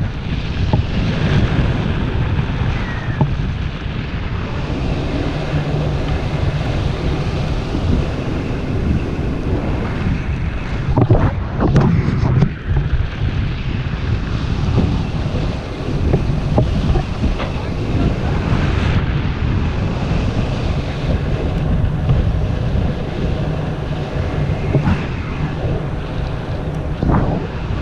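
Wind rushing hard over a helmet camera's microphone in paraglider flight, a steady low buffeting, with a few brief louder gusts or flaps about halfway through.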